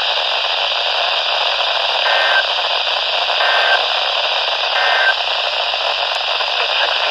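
Steady radio static hiss carrying three short Emergency Alert System data bursts, the end-of-message code, each about a third of a second long and spaced roughly 1.4 seconds apart.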